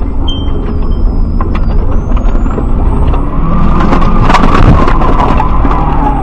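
Road vehicle heard from inside the cabin: a loud, constant rumble of engine and road noise, with a cluster of sharp clicks and crackles about four seconds in and a whine that rises and then falls in pitch over the second half.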